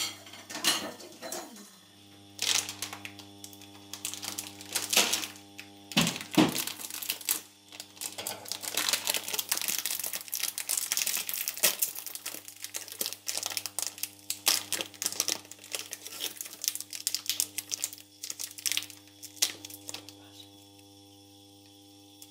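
Plastic bag of popcorn kernels crinkling and rustling as hands handle and open it, with irregular sharp crackles, over a steady low hum. The crinkling stops near the end.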